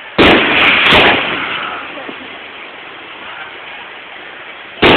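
Aerial firework shells bursting: two loud bangs about a quarter second and a second in, each fading over about a second, then another bang near the end.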